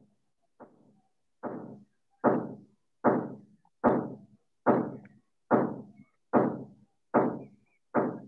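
Regular knocks, about one every 0.8 seconds, each with a short ring after it; faint at first, then louder from about two seconds in.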